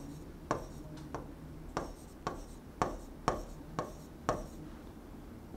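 Pen or stylus drawing on an interactive display screen: a row of short, sharp ticks, about two a second, as the pen strikes the glass with each loop drawn, stopping after about four seconds.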